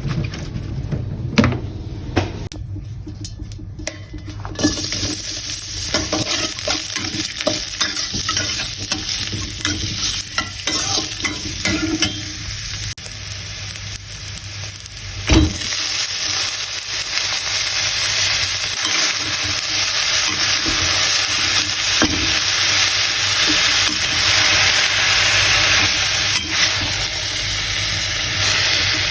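Food sizzling as it fries in a pan, with a spatula stirring and scraping against it. The sizzle starts a few seconds in and grows louder in the second half, with one loud knock about halfway.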